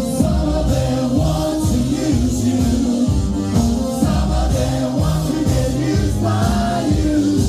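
A live band playing, with several voices singing together.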